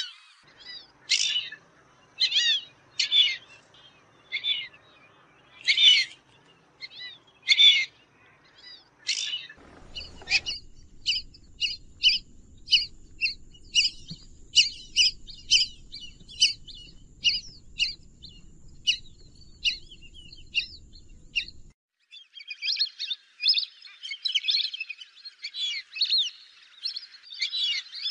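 Fulvous whistling ducks giving repeated short whistled calls, about one a second at first and then quicker. About ten seconds in, a low rumble and a thin steady high tone come up under the calls. Both stop about two-thirds through, and several birds then call together, overlapping.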